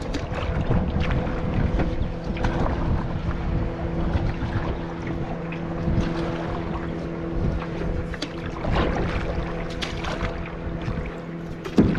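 A canoe being paddled on a lake, with wind buffeting the microphone, water sloshing and occasional short splashes or knocks from the paddle. A steady low hum runs underneath the whole time.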